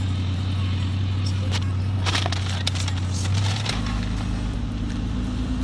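Steady low hum of a car idling, heard inside the cabin, with a patch of crackling and rustling around the middle. About two-thirds of the way in, the drone shifts to a different pitch.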